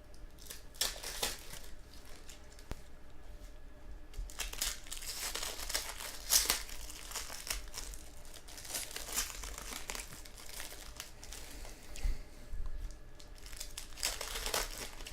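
Trading card pack wrappers being torn open and crinkled, in several bursts of rustling: briefly about a second in, for a few seconds in the middle, and again near the end.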